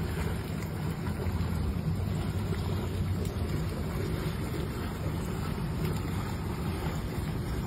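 Heavy rain falling steadily on standing floodwater, with a steady low rumble underneath.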